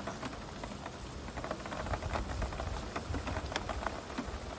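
Heavy rain pouring, with many separate drops ticking sharply close by over a steady hiss.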